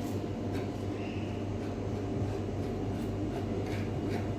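Steady low mechanical hum from a running appliance, with a few faint light clicks.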